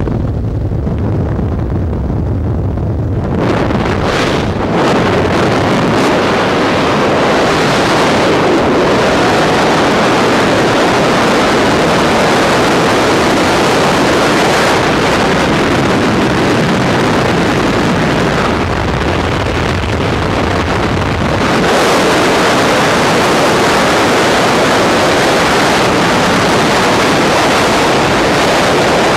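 Heavy wind noise on the camera microphone in skydiving freefall. It surges about three seconds in as the tandem pair leaves the aircraft; before that, the steady drone of the plane at its open door.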